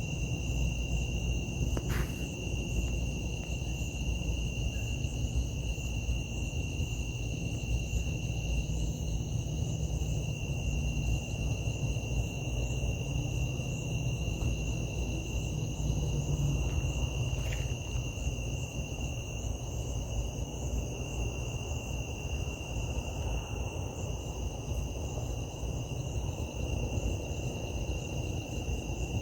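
Crickets or other insects keeping up a steady, high-pitched drone over a low rumble, with two faint clicks, one about two seconds in and one about halfway through.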